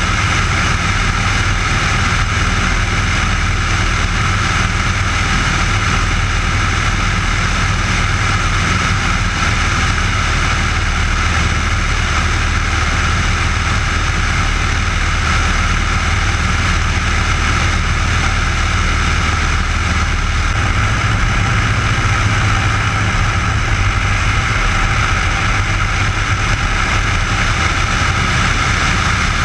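Piper J-3 Cub's air-cooled engine and propeller running steadily in cruise flight, a loud continuous drone heard from on board, with airflow noise.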